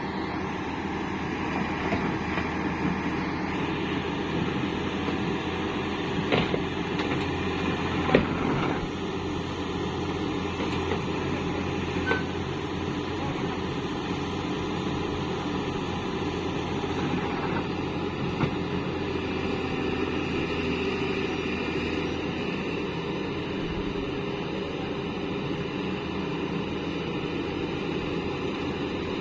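Caterpillar excavator's diesel engine running steadily while it works, with a few short sharp knocks, the loudest about eight seconds in.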